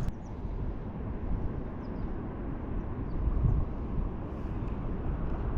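Steady low outdoor background rumble with a few faint, short high chirps.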